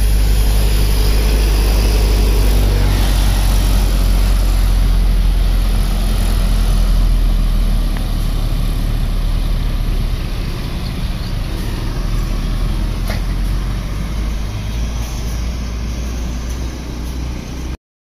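A big tour coach's engine running close by with a deep steady rumble as the coach pulls past, fading slowly as it drives away, and cutting off abruptly near the end.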